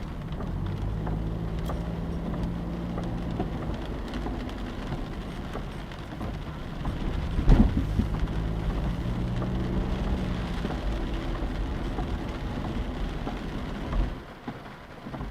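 Steady rain falling on a car, with a low hum under it. There is a single sudden loud bang about halfway through.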